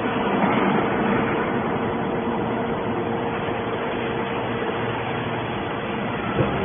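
A mini hydraulic can baler running, its pump motor giving a steady hum with mechanical noise, and one short knock near the end.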